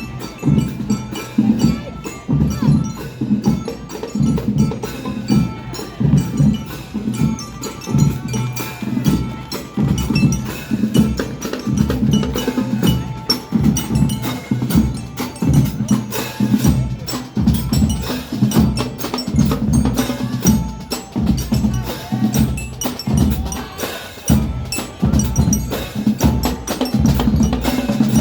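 Marching band playing: a steady, driving beat of drums, with light bell-like melodic tones over it.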